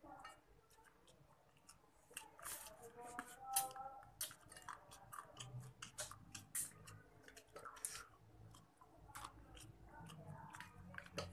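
A man chewing a mouthful of crab noodles, faint, with many short irregular clicks and smacks of the mouth.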